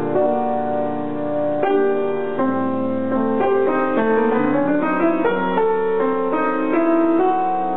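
Broadwood grand piano being played: a melody of single notes over held chords, with new notes struck every fraction of a second.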